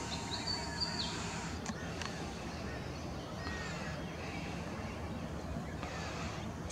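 Outdoor bush ambience with scattered bird calls: a high whistled note with a step in pitch in the first second and a few fainter chirps about three seconds in, over a steady low background noise, with a few faint clicks.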